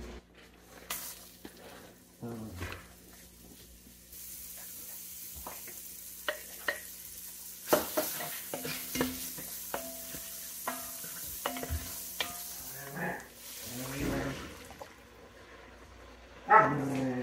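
Diced onions sizzling in bacon fat in an enameled cast-iron Dutch oven, stirred with a wooden spoon that knocks against the pot. The sizzle sets in about four seconds in. Near the end comes a louder burst as broth is poured into the pot.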